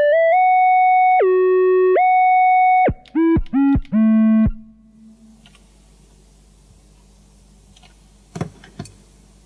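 A synthesized tone from Csound, played from a handheld game controller, holding steady pitches and gliding smoothly up and down between them. About three seconds in it breaks into four short notes, each swooping down in pitch as it starts, and stops about four and a half seconds in; faint room tone follows, with two clicks near the end.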